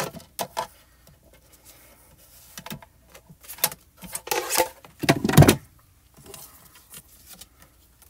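Handling noise at a paper trimmer: light clicks and taps as the trimmer arm is lifted and the cut card panel is taken out, then paper rustling and a low thump about five seconds in as the card and scrap paper are moved and set down.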